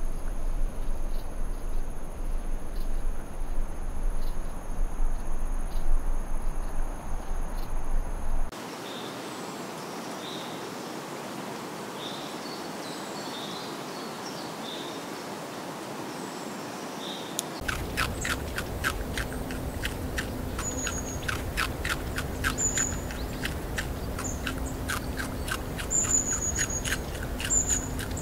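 Outdoor nature ambience that changes abruptly twice. First comes a steady high-pitched drone over a low rumble. About eight seconds in it turns to a quieter background with faint small chirps. From about eighteen seconds in there are rapid dry clicks and short high bird chirps.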